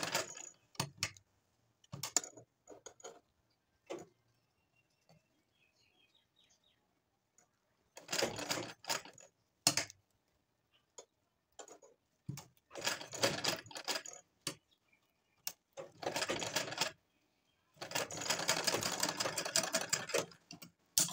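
Sewing machine stitching in short runs, the needle clattering rapidly, as a fabric flower is sewn round and round onto a round cloth base. There is a brief run at the start, a few single clicks, then a quiet stretch, and from about eight seconds in four runs of one to three seconds with short pauses between them.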